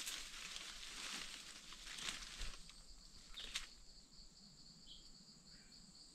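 Leaves and brush rustling and snapping as undergrowth is handled, dying away after about three and a half seconds, over a steady high insect drone.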